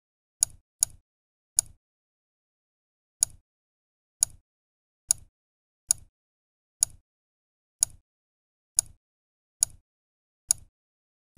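Computer mouse clicks, about a dozen short, sharp clicks at uneven intervals of roughly a second, with silence between them: points being marked one by one in motion-tracking software.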